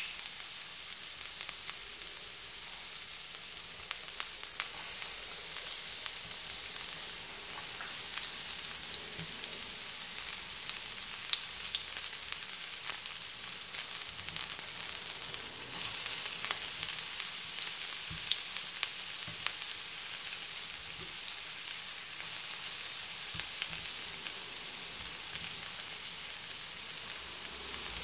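Sliced onions frying in a little hot oil in a frying pan: a steady sizzle with scattered small crackles and pops.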